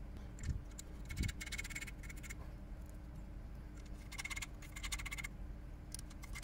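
Steel nuts being spun by hand down the threads of the windage tray bolts in a Ford Zetec engine's main bearing caps: faint, short bursts of rapid ticking, three times, with a couple of light knocks in the first second or so.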